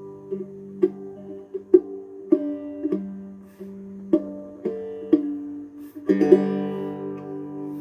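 Three-string resonator guitar played acoustically, unamplified: single plucked notes ringing over a sustained low drone, with a fuller strummed chord about six seconds in.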